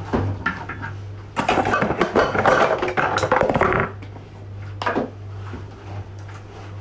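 Water jug being picked up and handled in the kitchen: a rustling, clattering noise for about two and a half seconds, then a few light knocks, over a steady low hum.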